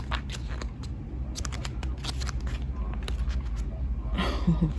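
Paper pages being flipped and handled: a run of small, crisp clicks and rustles, with a brief voice-like murmur near the end.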